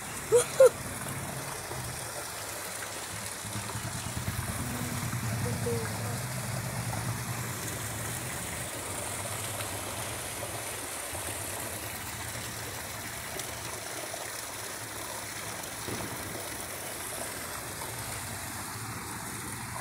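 Water running steadily along an open concrete drain, an even rushing wash. A low rumble swells between about four and eight seconds in, and two short, sharp pitched sounds stand out about half a second in.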